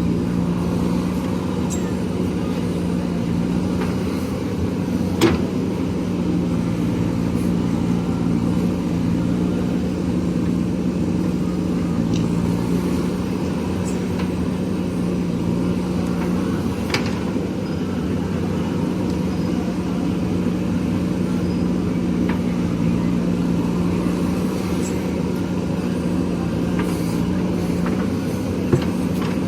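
JCB backhoe loader's diesel engine running steadily, with a few sharp knocks, the loudest about five seconds in.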